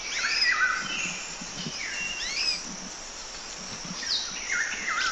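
Birds calling in woodland: a series of short whistled calls that sweep up and down in pitch, one after another, pausing briefly past the middle before more calls near the end.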